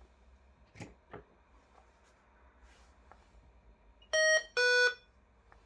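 Door monitoring system's sounder giving a short two-note electronic tone, the first note higher than the second, about four seconds in, after two faint clicks near the start.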